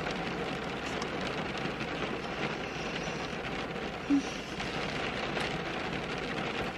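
Rain falling steadily on a car, heard from inside the cabin as an even hiss with faint scattered ticks. There is one brief low tone about four seconds in.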